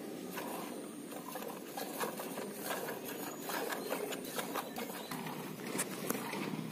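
Milk squirting in quick jets into a steel pail as a cow is milked by hand: a rapid, uneven run of short spurts, several a second.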